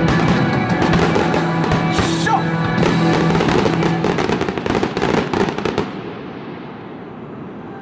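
Fireworks bursting and crackling in a dense rapid volley over background music; the crackle dies away about six seconds in, leaving the music alone.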